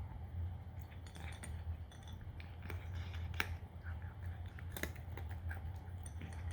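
A cat crunching dry kibble: irregular crisp crunches and clicks, with two sharper cracks about three and a half and five seconds in.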